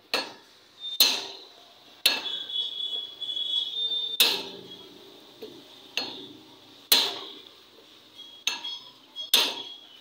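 A hammer striking the end of a steel axle shaft set through an auto-rickshaw wheel hub: about ten irregularly spaced metal-on-metal blows, each ringing briefly. One blow, about two seconds in, leaves a ring that lasts a couple of seconds. The blows are driving the axle and bearing into the hub.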